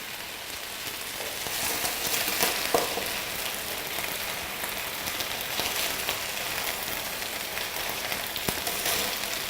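Sticky barbecue chicken marinade sizzling on the hot plate of a grill press: a steady sizzle with a few small crackles.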